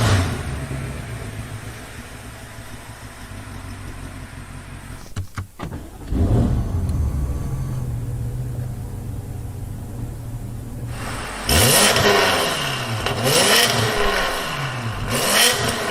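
BMW M8's twin-turbo V8 running at idle with a steady low hum, briefly breaking off near the middle and picking up again, then revved in several quick blips, its pitch rising and falling each time, from about 11 seconds in.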